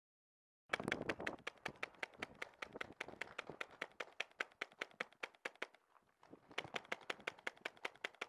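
Paintball markers firing in a rapid, steady stream of sharp pops, about seven a second, starting abruptly just under a second in, with a short break about six seconds in.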